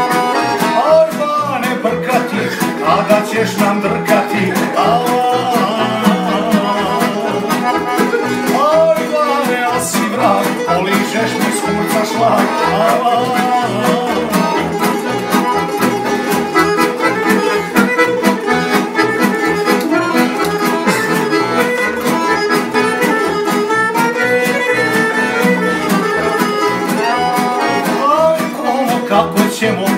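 Tamburica orchestra playing an instrumental passage: a melody over a steady rhythmic accompaniment.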